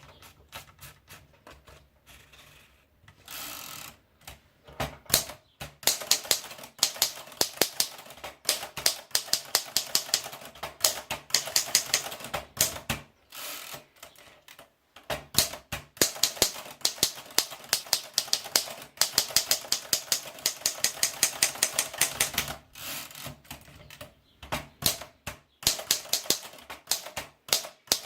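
Imperial Good Companion Model T portable typewriter being typed on. Runs of quick keystrokes clatter in spells, broken by short pauses.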